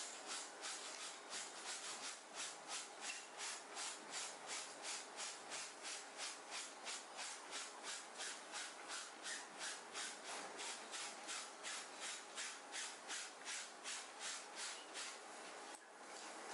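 A brush scrubbing a stained shirt on a person's chest, with quick, even back-and-forth strokes of about three a second that stop near the end.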